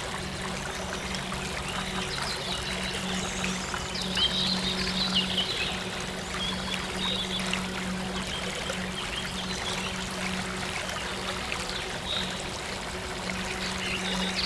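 A stream running and trickling, with short bird chirps now and then, loudest about four seconds in and near the end. A steady low synth drone hums underneath.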